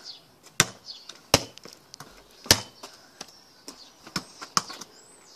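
Football bouncing on hard ground, a string of sharp thuds at uneven intervals, about one every half-second to a second.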